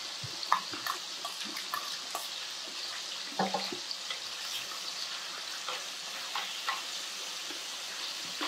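Sliced duck sizzling in its own fat in a frying pan: a steady frying hiss with a few faint clicks.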